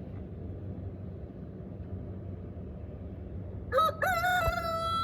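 A rooster crowing about three and a half seconds in: a short rising opening, then one long held note, over a low steady rumble.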